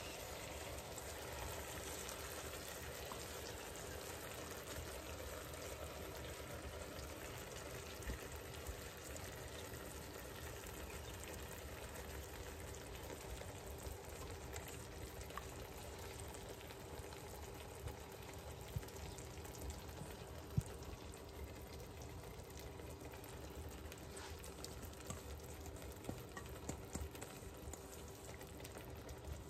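Caramelized apple slices frying softly in a pan as cake batter is poured over them, a faint steady sizzle. A few light clicks of a spoon against the metal bowl.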